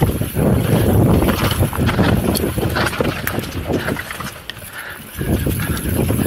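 Mountain bike rolling fast down a dirt singletrack, heard from a camera worn on the rider: a rumble of wind on the microphone and tyres on dirt, with frequent rattles and knocks from the bike over the bumps. It eases off for a moment a little past the middle, then picks up again.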